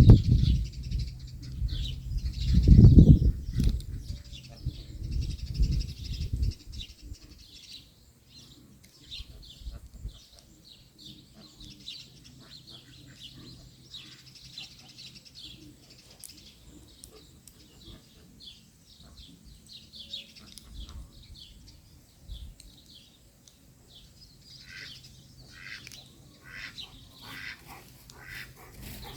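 Wild birds chirping and singing in many short, quick calls, growing busier near the end. For about the first six seconds a loud low rumble sits under them, then fades out.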